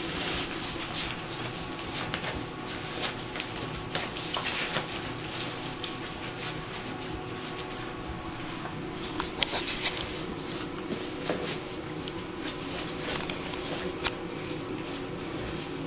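Puppies moving about on a tiled floor: scattered light taps and scuffs over a steady faint hum, with a cluster of louder taps about halfway through.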